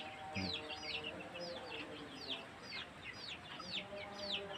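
Kampung chicks peeping over and over, each peep a quick downward slide, two to three a second, with hens clucking low underneath.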